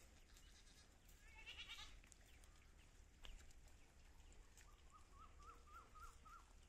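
Faint, high goat bleats: a short wavering bleat about a second and a half in, and a thinner quavering one near the end.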